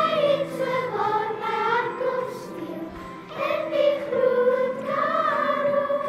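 A children's choir singing a slow song in long, held notes that glide smoothly from one pitch to the next.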